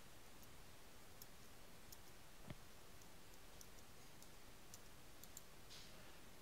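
Faint computer mouse clicks, scattered a second or so apart, over quiet room tone, with one soft thump about two and a half seconds in.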